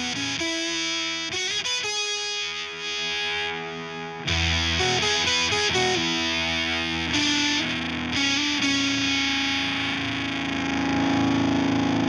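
Electric guitar played through a Veri-Tone Beehive pedal with a distorted tone, mixing picked chords and notes and ending on a long held note. For the first four seconds the pedal's Low Cut switch thins the bass and lowers the volume; about four seconds in the full low end and level come back.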